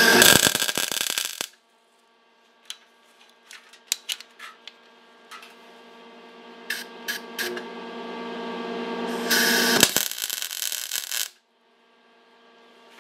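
MIG welder laying two tack welds on clamped steel pieces: a crackling burst of about a second and a half at the start and another of about two seconds near the end. Light clicks and a low steady hum fill the gap between them.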